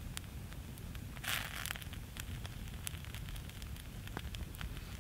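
Wood campfire crackling, with scattered sharp pops over a low steady rumble of the flames, and a short hiss about a second and a half in.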